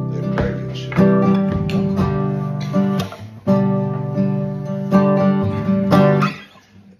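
Nylon-string classical guitar strummed in full chords, each chord left to ring before the next strum, then dying away near the end.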